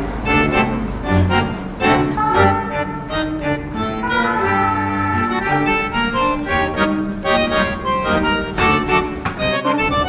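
Background music: a melody of many changing notes over held bass notes.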